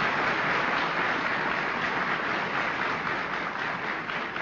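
Audience applauding in a hall, easing off a little toward the end.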